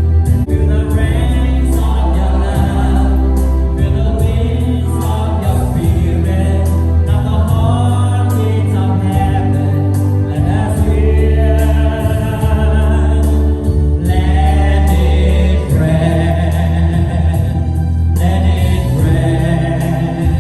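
Music: a gospel choir singing a worship song over a band with sustained bass notes and light percussion.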